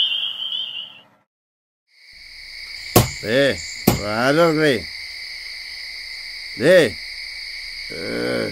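A pulsing high-pitched night chorus trill that cuts off about a second in. After a short silence, a steady high ringing drone sets in, with several wavering calls that rise and fall in pitch and two sharp clicks.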